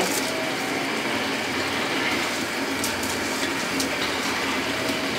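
Steady rushing and bubbling from a large pot of watery biryani masala boiling hard over a gas burner, with a few faint clicks about three to four seconds in.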